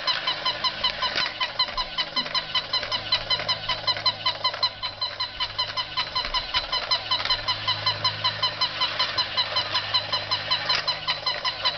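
Battery-powered penguin toy running, making a rapid string of short, high, honking electronic notes about four times a second without a break.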